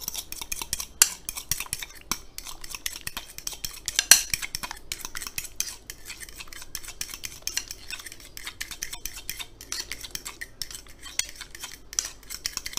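Metal fork stirring mayonnaise and pressed garlic in a ceramic bowl, a quick continuous run of scraping and clicking strokes against the bowl, with louder knocks about a second and four seconds in.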